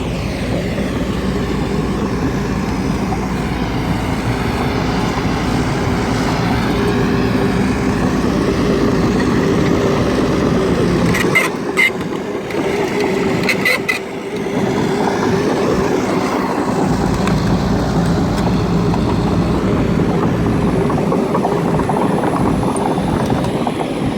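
Heavy diesel engine of earth-moving machinery running steadily under load, with a few sharp knocks about halfway through.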